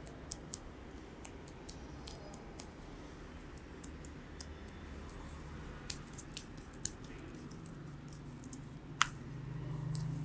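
Hands massaging and patting a face: scattered light, sharp clicks and taps over a steady low hum, with a low drone swelling near the end.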